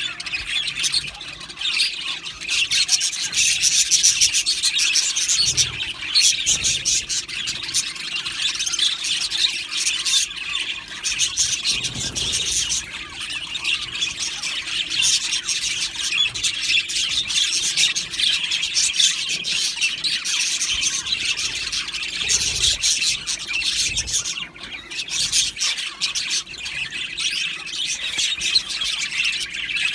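A flock of budgerigars chattering and chirping, many birds calling over one another in a dense, continuous warble.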